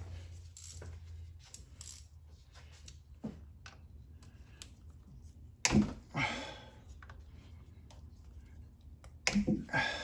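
Hand-work noise on an engine bay: light clicks and taps from a hand and tools on metal fittings, with two louder bursts of handling noise about six and nine seconds in.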